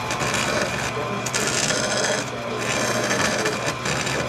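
Vertical bandsaw running with its blade cutting sheet aluminum, over a steady motor hum. The scraping cutting noise swells and eases off several times as the piece is pushed through the blade.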